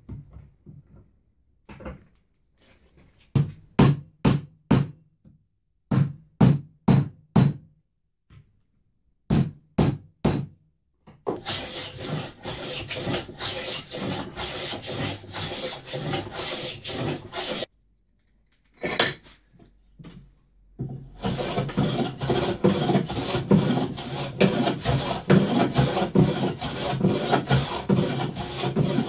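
Hand wire brush scrubbing an oak board: a few short sets of strokes, then two long runs of quick back-and-forth scrubbing with a pause of a few seconds between them.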